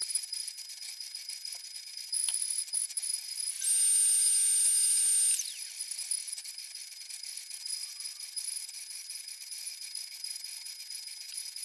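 CNC router spindle and bit carving an oak block, a steady high whine with light clicking of the cut. About three and a half seconds in, a louder stretch of nearly two seconds, with a higher whine that slides up at its start and down at its end.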